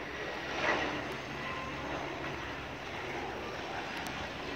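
Single-engine floatplane flying past low over the water, its propeller engine making a steady drone.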